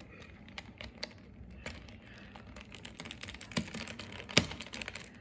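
Plastic Rubik's Cube pieces clicking and rattling as an edge piece is worked back into the cube, irregular small clicks with a sharper snap about four seconds in.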